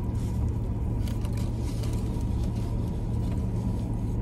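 Steady low hum of a parked car with its engine running, heard from inside the cabin, with a few faint rustles of a paper napkin.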